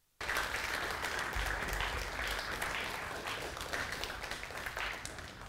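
Audience applause, starting abruptly out of silence and continuing densely, easing a little near the end.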